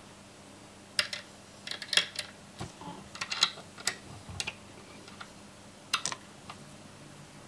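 Fingers handling a jig and its tying materials at a fly-tying vise: a scatter of small sharp clicks and rustles. They start about a second in and die away after about six and a half seconds.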